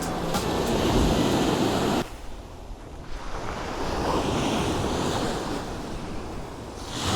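Waves washing on the shore with wind buffeting the microphone; the sound drops off suddenly about two seconds in and builds back up a couple of seconds later.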